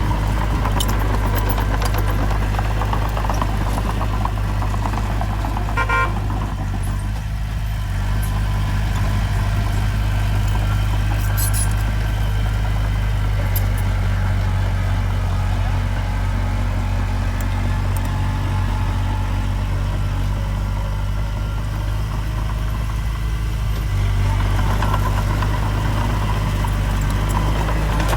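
Heavy earthmoving machine's diesel engine running steadily under load, easing a little about seven seconds in and working harder again near the end, with a few brief clinks over it.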